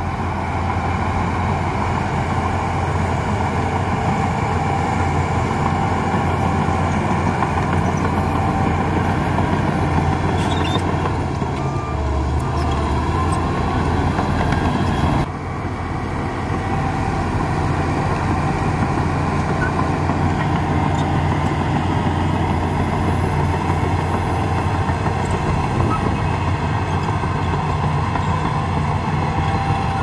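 Heavy earthmoving machinery running steadily with a low engine drone. The level drops abruptly about halfway through, then settles back to the same steady drone.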